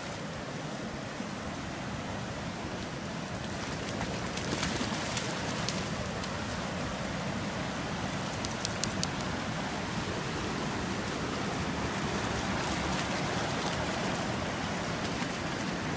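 Creek running high and fast with snowmelt and flood water, a steady rushing over the shallows, with a few short clicks about four and eight seconds in.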